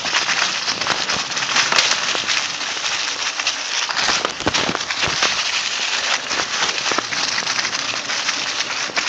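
Mountain bike tyres rolling fast over dry fallen leaves, a continuous crackling rush with frequent sharp knocks as the bike bumps over the trail.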